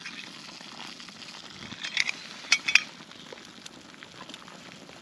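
Water at a rolling boil in a small metal camping pot, a steady bubbling hiss, with a few sharp metallic clinks about two to three seconds in as the pot lid is set down and the handle taken.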